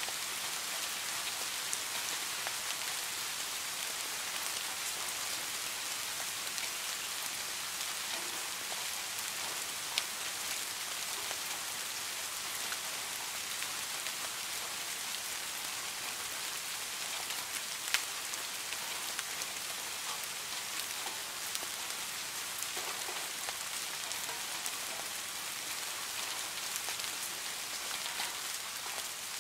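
Steady rain falling, an even hiss scattered with the ticks of single drops; two sharper drips stand out partway through.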